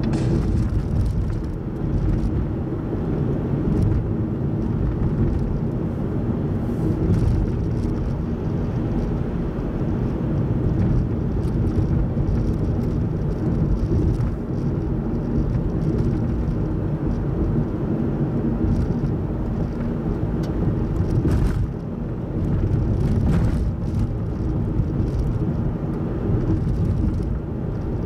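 Steady low road and engine noise heard from inside a car cruising along a highway.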